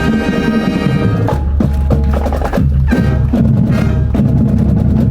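High-school marching band playing live: brass and woodwinds hold full chords while drums strike the beat.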